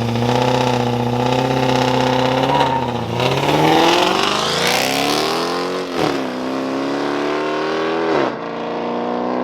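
Car engine held at steady high revs, then accelerating hard in a street race, rising in pitch and dropping twice at upshifts.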